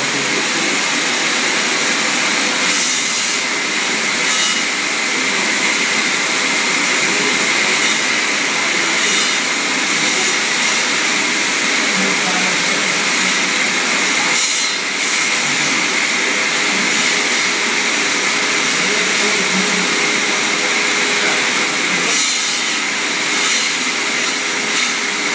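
A motor-driven machine running steadily with a loud, even whir, swelling briefly a few times.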